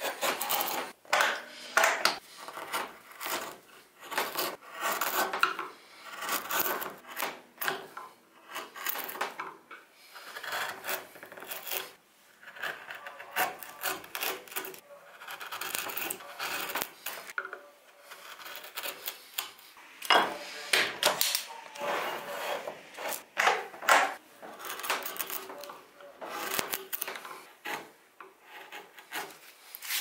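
Hand carving gouge paring into a wooden board, a long run of short, uneven scraping cuts as shavings curl off, hollowing out a bowl.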